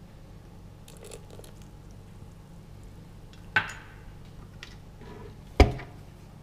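Small clicks and a sharp metal knock from a stainless steel mixing bowl being handled on a stand mixer, then a heavier clunk about five and a half seconds in as the mixer's tilting head is lowered and the paddle drops into the bowl. The mixer motor is not running.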